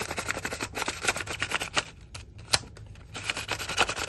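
Plastic Paterson developing reel, wound with film, handled and twisted between the hands: quick runs of small plastic clicks and rubbing, with one sharper click about two and a half seconds in.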